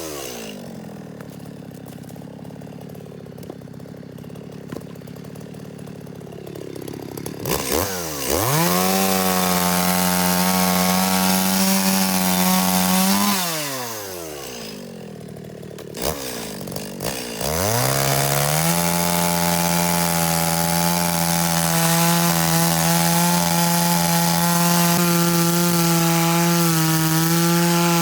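Gasoline chainsaw idling, then revved up to full throttle about eight seconds in and held there cutting firewood, dropping back to idle about halfway. It is blipped a few times and revved up again, running at high speed through the rest with small dips in pitch as it bites into the wood.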